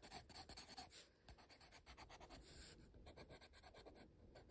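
Pencil scratching faintly across sketchbook paper in quick, short shading strokes, busier in the first second and softer after.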